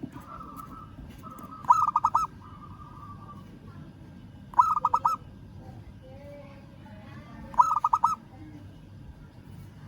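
Zebra dove (perkutut) cooing: three short staccato calls about three seconds apart, each a quick run of four or five notes, given as a challenge call to a rival.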